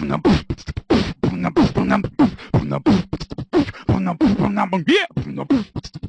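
A human voice beatboxing: rapid clicks and pops with short falling-pitch vocal sounds, several a second.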